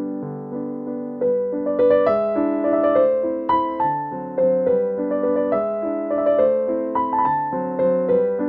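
Background music: a gentle piano melody over chords, with notes struck one after another and fading.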